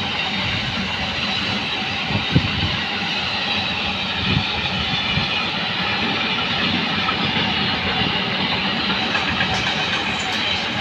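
Loaded double-deck car-carrier freight wagons rolling past on the track, a steady rumble and rattle of wheels and wagon bodies, with two sharper knocks about two and four seconds in.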